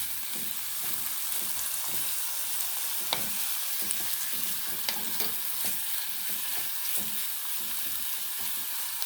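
Sliced onion, ginger, garlic and curry leaves sizzling in hot coconut oil in a chatti as they are stirred and sautéed, with a steady frying hiss and occasional clicks of the stirring utensil against the pan.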